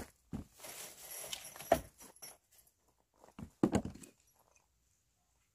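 Scrap wooden boards and blocks being handled and set down against a wooden deck step and a concrete block: a few irregular knocks and clatters with rustling between them. The sharpest knock comes a little under two seconds in, and a short cluster follows a couple of seconds later.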